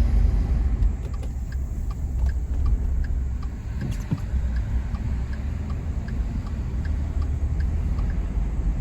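A low, steady rumble with a faint, even ticking of about two to three ticks a second.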